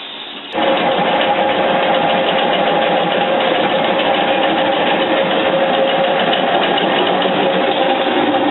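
General Electric top-load washing machine running, its motor and belt drive giving a loud, steady hum with a mechanical whir that starts suddenly about half a second in. The washer is working again after its slipping drive belt was retightened.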